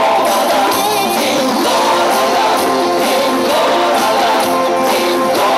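Music: a song with a singing voice, at a steady loud level.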